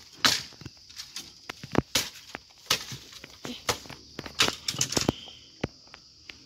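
Dry bamboo branches cracking and snapping in irregular sharp cracks as they are hacked and broken off at the base of a bamboo clump, with a quick run of cracks about five seconds in.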